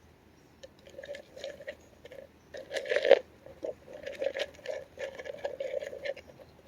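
Crunchy rustling in irregular bursts that starts under a second in and stops near the end, with the loudest crackle about three seconds in.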